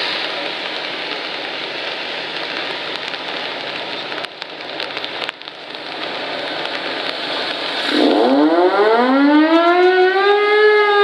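Steam hissing steadily from a steamship's vents. About eight seconds in, the ship's steam whistle opens: its pitch rises sharply as the steam comes through, then holds in a long blast.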